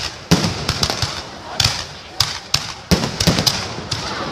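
Fireworks bursting overhead in an irregular run of sharp bangs, about ten in four seconds, each with a short echoing tail.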